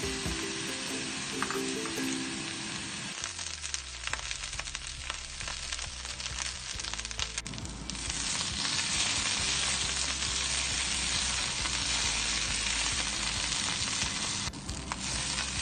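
Chinese leek stalks sizzling in hot oil in a wok while a wooden spatula scrapes and tosses them. The sizzle grows louder about halfway through.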